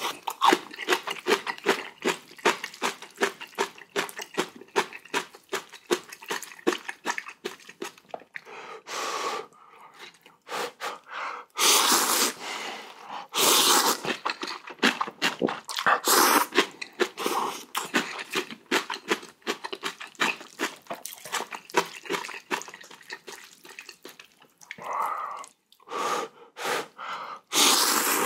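Close-miked eating of spicy ramen with kimchi and oysters: rapid wet chewing and smacking, broken by several longer noodle slurps.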